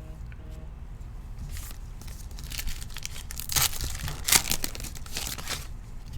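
Crinkly wrapper of a pack of football trading cards being torn open and crumpled, in a run of crackling tears that peak about three and a half and four and a half seconds in.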